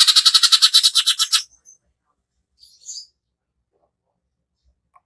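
Greater green leafbird (cucak ijo) giving a harsh, rapid-fire trill of about ten pulses a second, the 'tembakan kasar' phrase that birdkeepers play to provoke other birds into singing. It stops about a second and a half in, followed by a single short, fainter call a little later.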